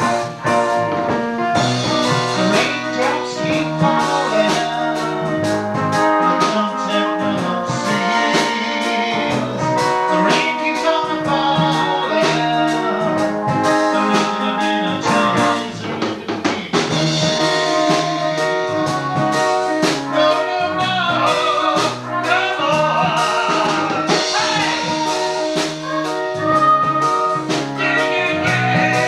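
Band music with drum kit and singing.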